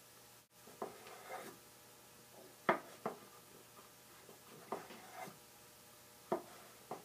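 Knife slicing portobello mushroom caps on a wooden cutting board: about seven short sharp taps of the blade against the board, at uneven spacing, some in quick pairs.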